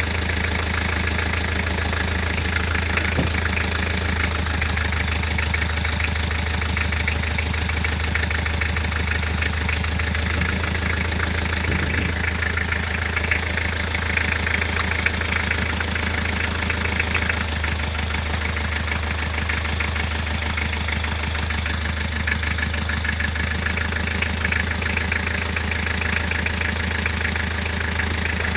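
Toyota C1's engine idling steadily with a fast, regular knock running through it: an unidentified knock that the owner is trying to trace.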